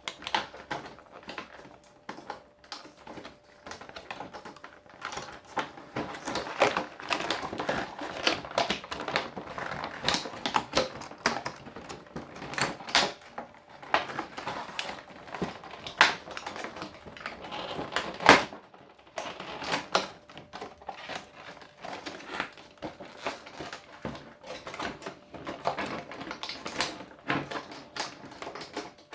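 Stiff plastic packaging being handled and worked open by hand: a dense, irregular run of crackles, clicks and taps, with one louder snap about 18 seconds in.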